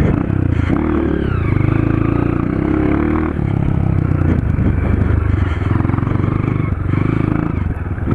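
Honda CRF 230 dirt bike's single-cylinder four-stroke engine with an FMF Powercore 2 exhaust, running under throttle. Its revs climb, drop sharply about three seconds in, then hold fairly steady.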